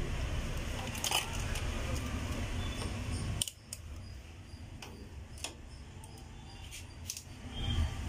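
Handling noise of hands working fridge compressor wiring and a clamp meter: scattered sharp clicks and light rustling. A low background rumble cuts off suddenly about three and a half seconds in.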